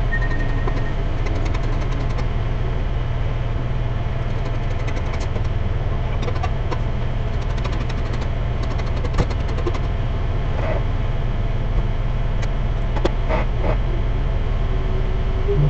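Engine running steadily with a low, even drone, and a few sharp knocks toward the middle and later part.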